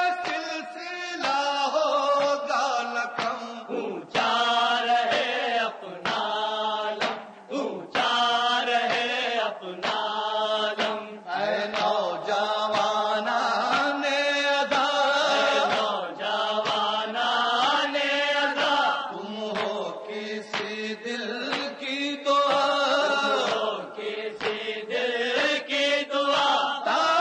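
A noha, an Urdu Shia lamentation, chanted in long sung lines that rise and fall, with short breaks between phrases.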